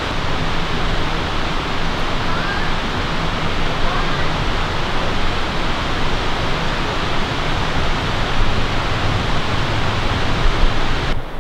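Steady rushing of fast river water, an even noise with no rhythm, cutting off suddenly near the end.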